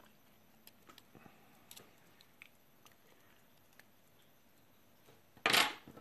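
Faint scattered clicks and ticks of a thin steel tool working against the pins inside a brass lock cylinder. About five and a half seconds in comes one short, much louder metallic clatter.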